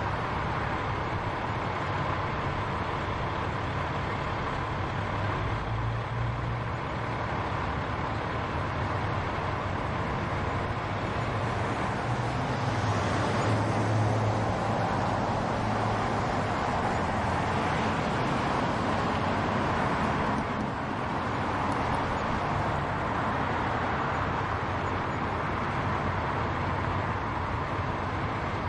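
Continuous road traffic: the steady hum and tyre noise of passing vehicles, a little louder around the middle.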